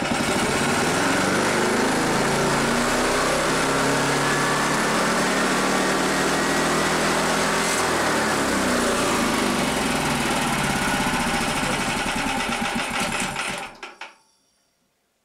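Lifan KP460 single-cylinder four-stroke engine, fitted with a PZ30 carburetor, revving up and climbing for about eight seconds, then the revs fall away and the engine stops near the end. It will not go past about 5,000 rpm on this carburetor, even with a 250 main jet taken from a K68 carburetor.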